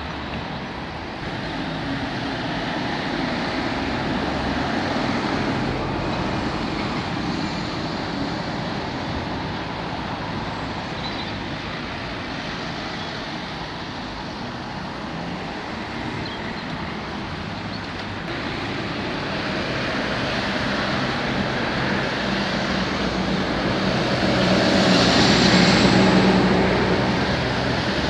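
Road traffic: a steady wash of passing vehicles, tyres and engines, with one vehicle growing louder as it passes close near the end.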